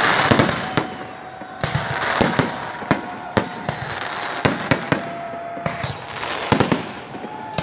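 Fireworks salute: many sharp bangs of shells bursting at irregular intervals, with stretches of crackling between them.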